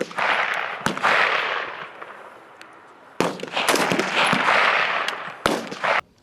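Rifles firing on a range: several sharp shots at irregular intervals, over the continuous clatter of overlapping shots and echo from the firing line.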